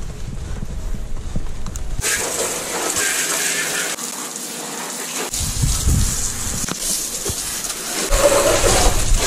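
A low rumble of handling noise for about two seconds, then a garden hose spraying water over a motorcycle as it is rinsed after a foam wash: a steady hiss of spray with splashing.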